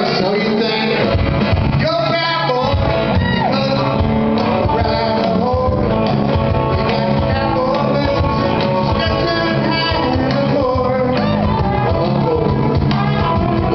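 Live band playing country-rock: a man singing lead over strummed acoustic guitar, electric bass and cajón.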